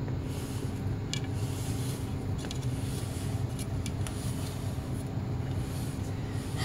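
A steady low hum, with a few soft clicks and scrapes as a silicone spatula stirs thick chocolate cake batter in a glass bowl.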